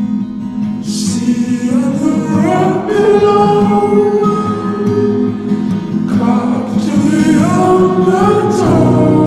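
Slowed-down indie folk song: long, drawn-out sung vocal lines over acoustic guitar, in two phrases, the first starting about a second in and the second about six seconds in.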